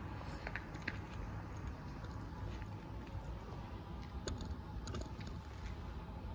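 Quiet outdoor background: a steady low rumble with a few faint scattered clicks and rustles.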